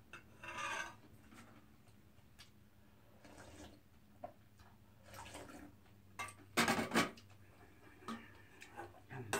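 Slurping bean-sprout soup from a stainless-steel bowl: a few separate slurps, the loudest about two-thirds of the way through, with light clinks of metal dishes.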